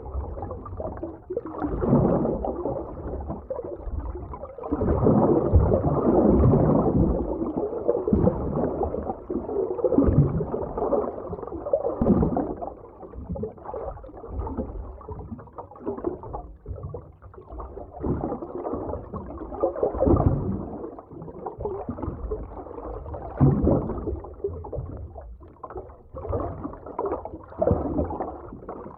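Muffled underwater ambience: water surging and gurgling in irregular swells, every sound dull and deep with nothing above the low-middle range.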